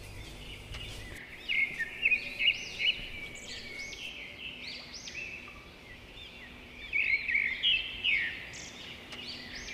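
Small birds chirping and twittering: quick, high chirps in two lively bursts, one starting about one and a half seconds in and another about seven seconds in, with scattered calls between.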